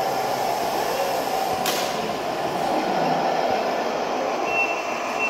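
Steady background noise in a hall where RC model trucks are running: a continuous whirring mix, with a short hiss about a second and a half in and a faint high whine near the end.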